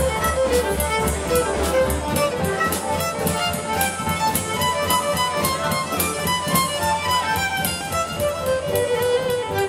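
Live contra dance band playing a fiddle-led dance tune with a steady beat.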